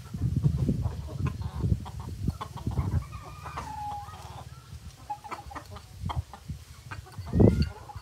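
Gamecock rooster clucking, a string of low, uneven calls with a louder one near the end.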